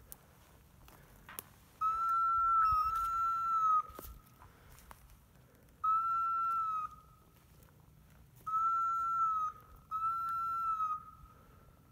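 Five blasts on a hunter's dog whistle, each about a second long on one steady note that dips slightly as it fades. The first two come back to back, the third stands alone, and the last two come close together near the end.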